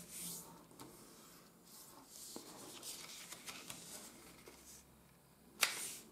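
Sheet of coated origami paper rustling and crackling under the fingers as a corner is folded in and creased flat, with one short, sharper crackle near the end that is the loudest sound.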